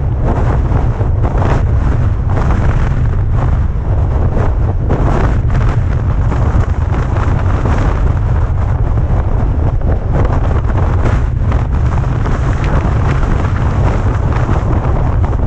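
Wind buffeting a microphone that has no wind cover, on a moving vehicle: a loud, constant low rumble with gusty, uneven noise over it.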